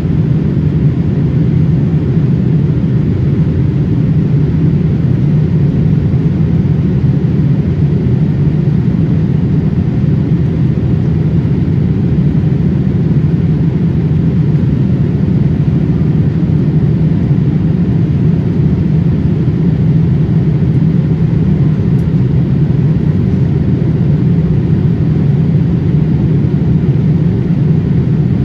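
Steady cabin noise inside a Boeing 787-8 airliner in flight: engine and airflow noise heard through the cabin wall as a low, even drone.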